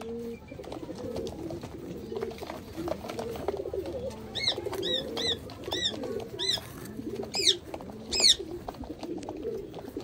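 Domestic pigeons cooing in their loft, a steady run of low repeated coos. Midway, a small bird adds a string of about eight high chirps over some four seconds.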